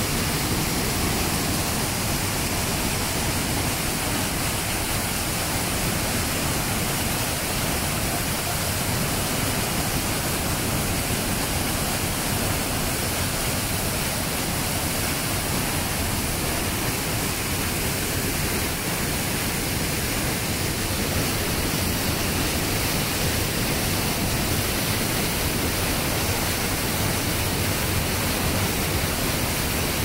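A large waterfall in strong rainy-season flow: a steady, dense rush of falling water with no breaks.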